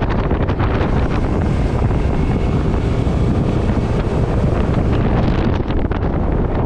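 Heavy wind buffeting the microphone over the outboard motor of a Tracker 195 bass boat running at speed, with water rushing past the hull.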